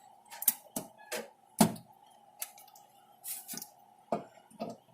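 Irregular clicks and knocks of metal parts being handled and fitted as a computer power supply is reassembled, the loudest about one and a half seconds in.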